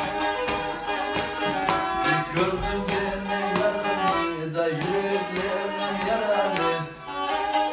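Black Sea kemençe, a three-stringed upright bowed fiddle, playing a folk tune, with the bowed melody moving from note to note.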